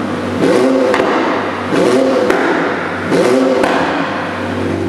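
McLaren 720S's 4.0-litre twin-turbocharged V8 blipped three times while standing still, each rev rising and falling back with a sharp crack as it drops. Near the end it settles to a steady idle.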